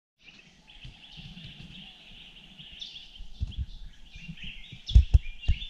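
Many small birds chirping and calling together in a continuous dawn chorus of short, high notes. A few loud, low thumps come close together near the end.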